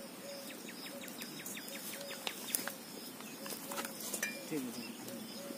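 Birds calling: a quick run of short chirps in the first two seconds over a low call repeating about twice a second, with a few sharp clicks.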